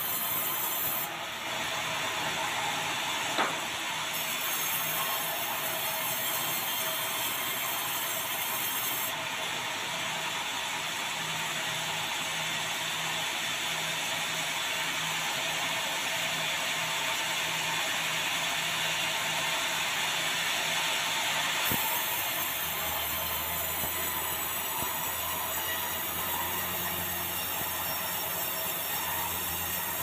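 Band sawmill blade ripping through a dry bengkirai (yellow balau) hardwood timber: a steady hiss and whine of the saw running under load in the cut. A knock comes a little over three seconds in and another about two-thirds of the way through, after which a low hum joins in.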